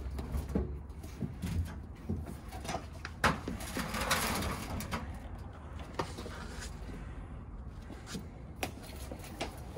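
Scattered light knocks and clicks as PVC drain pipe and fittings are handled and set in place, with a brief rasping rub about four seconds in. A low steady hum runs underneath.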